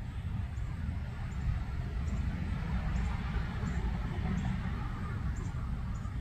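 Steady low outdoor rumble with a faint hiss above it, and faint short high ticks every second or so.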